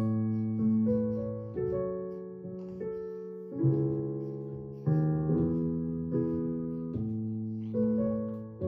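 Digital piano played slowly in its piano voice: a calm melody over chords, each struck chord left to ring and fade before the next, about every second.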